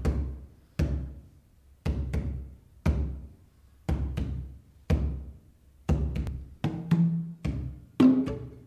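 Javanese gamelan ensemble playing: a deep, low stroke about once a second, each dying away quickly, with quicker strikes and pitched notes joining about six seconds in.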